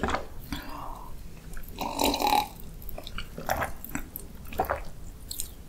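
Drinking water from a glass close to the microphone: several gulps and swallows, the loudest about two seconds in.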